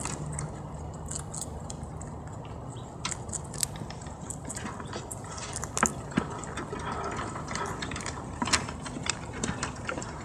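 Rabbits biting and crunching into cucumber strips: many short, crisp, irregular crunches, the loudest a little before the middle and again later, over a steady low background noise.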